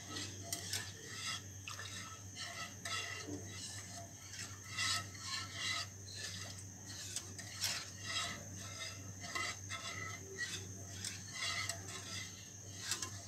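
Metal wire whisk scraping and swishing against the bottom of a pan of milk mixed with cornflour and sugar, in quick, irregular strokes, as the mixture is stirred continuously over the flame so it thickens without lumps. A steady low hum runs underneath.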